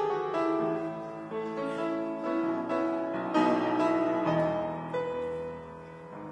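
Piano playing slow, sustained chords, struck again every second or two and left to ring: the introduction to a gospel song, before the choir comes in.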